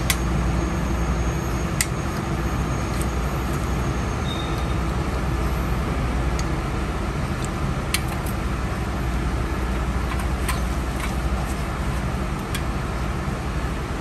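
Steady low mechanical hum of a running machine, with a few sharp metal clicks and taps as a brake pad retainer bar is worked down into an air disc brake caliper.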